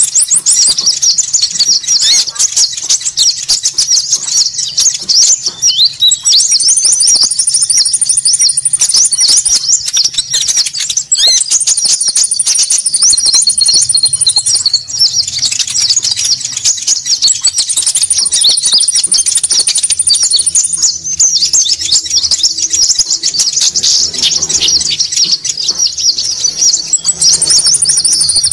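Bird-lure recording of small konin birds calling: a dense, busy chorus of rapid high-pitched chittering. A steady high trill comes in over it four times, about three seconds each time.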